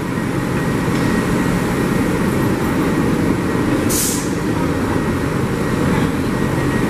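New York City subway train running, a loud steady rumble, with a short hiss of air about four seconds in.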